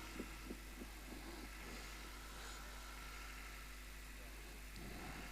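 Faint steady background hum and hiss from the recording system, with a few short, faint fading sounds in the first second and again near the end.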